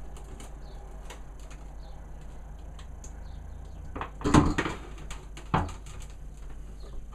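A plastic car headlight housing being handled and set down on a workbench: scattered light clicks, a loud cluster of knocks about four seconds in and one more thud about a second later, over a steady low hum.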